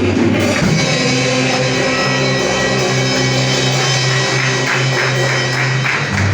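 Church praise band playing an instrumental passage without singing: held chords over a pulsing bass line, with drums.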